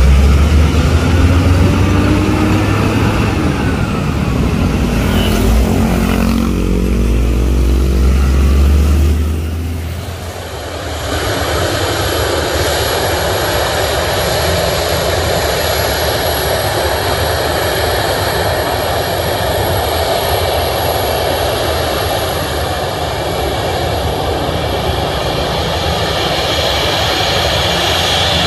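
A concrete mixer truck's diesel engine rumbling past, its pitch rising in steps as it pulls away. About ten seconds in this gives way to a Boeing 737 airliner's jet engines running steadily at low power as it taxis on the runway: an even rush with a thin high whine.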